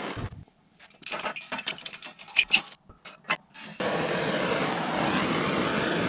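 A few scattered clicks and taps, then about four seconds in a handheld gas torch lights with a short sharp hiss and burns with a steady rushing hiss. The flame is heating a solder-filled ring terminal on a battery cable.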